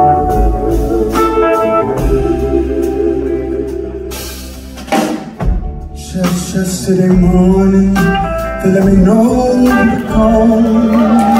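Live blues-rock band playing, with electric guitars and drums, recorded from the audience. The playing eases off for a moment about four seconds in, and after that a singing voice carries the tune.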